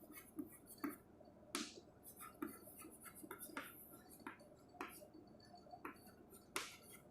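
Writing by hand: faint, irregular short scratches and taps of a writing tip on a surface, stroke by stroke, as a label is written.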